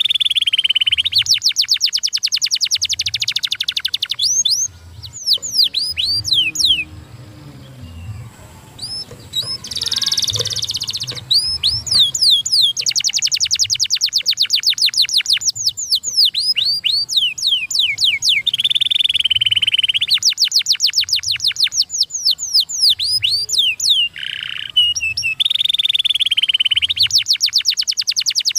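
Domestic canary singing in long, fast trills of rapidly repeated high notes, mixed with quick down-slurred whistles and held rolling phrases. There is a pause in the song about five to nine seconds in.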